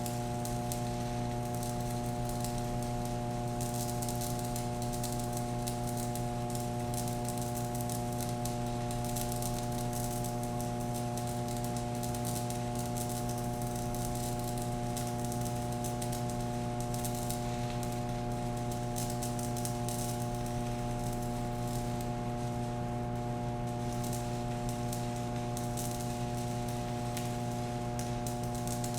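Stick welding arc burning steadily: an E6013 rod on a small inverter welder set to 60 amps, giving a continuous crackling sizzle over a steady electrical hum.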